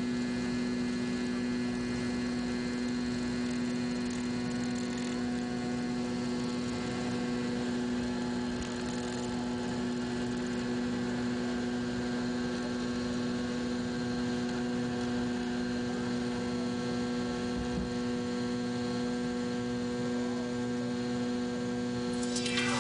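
Airliner cabin drone from an MD-82 at takeoff thrust: its rear-mounted Pratt & Whitney JT8D engines give a steady hum with one strong low tone and several fainter tones above it. It holds unchanged through the takeoff roll and climb-out.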